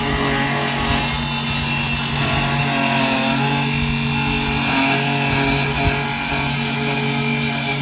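Corded electric lawn mower running steadily as it cuts grass, with background music playing over it.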